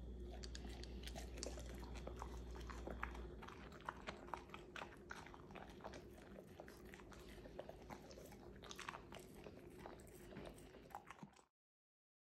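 A German shepherd chewing soft rice and licking it off a stone table top: many small wet clicks of mouth and tongue. The sound stops suddenly near the end.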